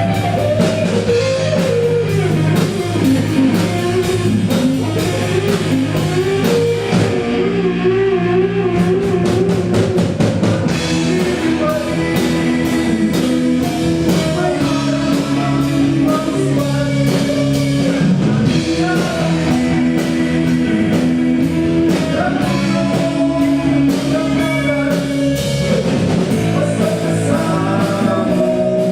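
Rock band playing, with guitar over a drum kit keeping a steady beat.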